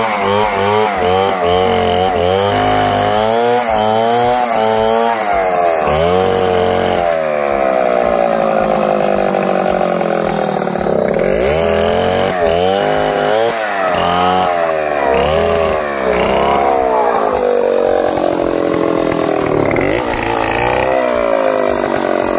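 Two-stroke chainsaw ripping a log lengthwise into planks. The engine's pitch wavers quickly up and down for the first few seconds, then rises and falls in longer swings as the chain bites and frees in the cut.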